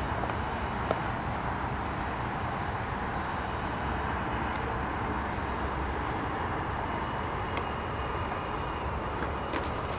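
Steady rushing noise of a small twin electric ducted-fan RC jet in flight, mixed with wind on the microphone, with a couple of faint clicks.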